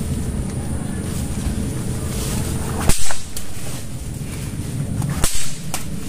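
Two sharp, whip-like cracks about two and a half seconds apart: blows struck with a red hand-held object.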